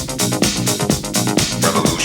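Electronic dance music with a steady, fast beat and sustained synth layers, played as a DJ set.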